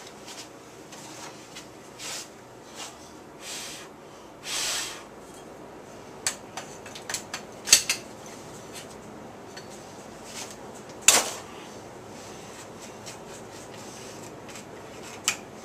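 Polymer fore-end of a pump shotgun being slid and worked against the barrel and heat-shield tabs, testing whether the grinding lets it pass. A few short sliding scrapes come first, then a series of sharp plastic-and-metal clicks and knocks, the loudest about 8 and 11 seconds in.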